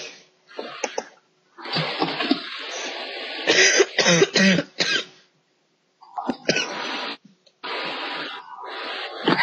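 A sleeping girl snoring loudly over a video-chat connection: several long, harsh, noisy breaths, each a second or two long, with short gaps between.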